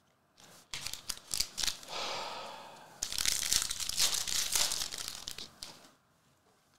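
A foil wrapper of a Panini Prizm basketball card pack being torn open and crinkled by hand, after a few light clicks of cards being handled about a second in. The tearing and crinkling is densest through the middle and stops about a second before the end.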